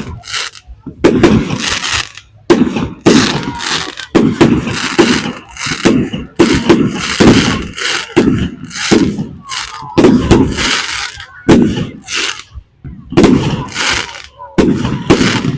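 Fireworks exploding in quick succession, about one or two loud bangs a second, each dying away briefly, with a short lull about two-thirds of the way through.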